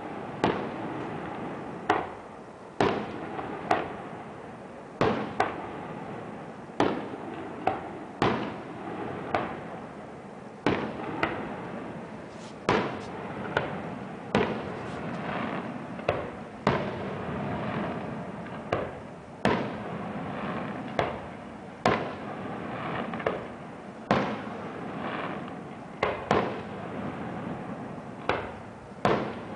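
Aerial firework shells bursting one after another in a display, a sharp bang every second or two, each trailing off in an echo, over a continuous crackling haze.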